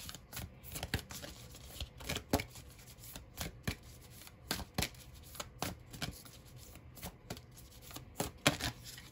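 A deck of oracle cards being shuffled by hand, the cards clicking and slapping together in irregular strokes, a few a second.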